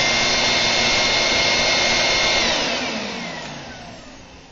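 Electrolux Regency upright vacuum cleaner's motor and fan running at full speed with a steady high whine. About two and a half seconds in it is switched off, and the whine falls in pitch as the motor spins down.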